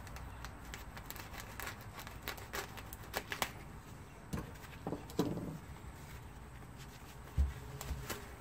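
Plastic wrap being slit with a knife and torn off a foam-wrapped package: scattered crinkles and rustles of plastic and foam, with a low thump a little before the end.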